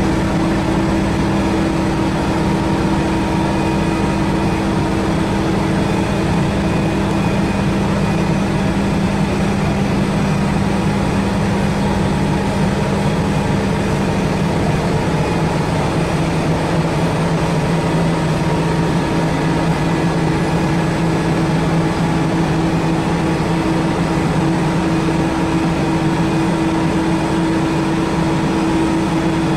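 Steady machinery hum of a biomass gasification plant: a continuous loud drone with two low hum tones, the lower one dropping slightly in pitch about halfway through.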